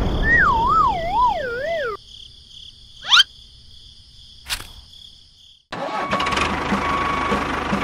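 A warbling tone that slides downward in wobbles, then near quiet broken by a short rising chirp and a click. About six seconds in, the small motor of a miniature model machine starts and runs steadily with rapid ticking.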